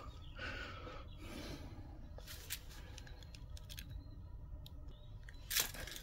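Chinese diesel heater's replacement pulse-metering fuel pump ticking, a faint sharp click every half second to a second, unevenly spaced, with one louder click near the end. Under it is the low steady hum of the heater running through its start-up.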